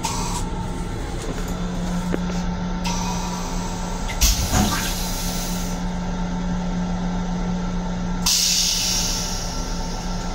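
Rail-car toilet flushing: a hiss of water starts about three seconds in, a loud clunk comes about a second later, and a stronger hiss of rinse water follows near the end, over a steady low hum.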